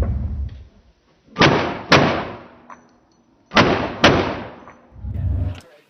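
Rifle shots in slowed-down playback, four drawn-out blasts about two seconds apart. Two come through as deep low rumbles. The other two are bright bursts with long fading tails, each with a sharp crack half a second after it starts.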